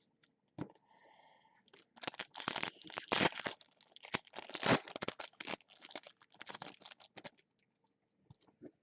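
Crinkling and tearing of a trading-card pack wrapper being ripped open and handled: a dense run of crackles for about five seconds, ending well before the close.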